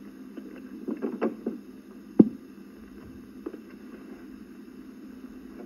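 Steady low hum with scattered faint clicks and one sharp knock about two seconds in.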